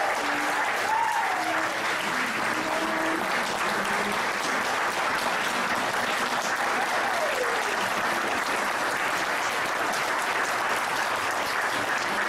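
Audience applauding steadily in a standing ovation, with a few faint voices calling out through the clapping.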